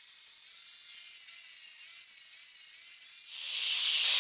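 Angle grinder with a hard grinding disc grinding the steel face of a cross peen hammer head, flattening and squaring it. A steady grind that grows louder and harsher about three seconds in as the disc bites harder.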